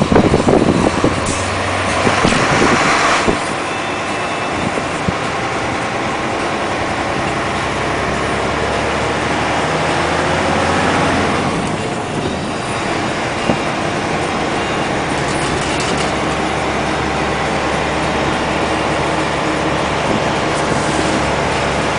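Heavy dump truck's diesel engine running steadily, with a short burst of hiss about two seconds in and a slight swell in loudness around the middle.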